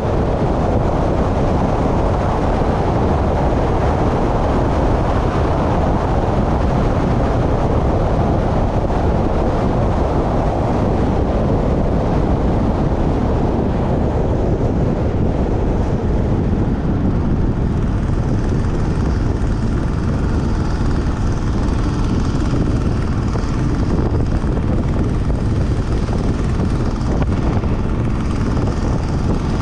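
Steady rumble of a vehicle travelling at speed along a paved road, with wind rushing over the microphone.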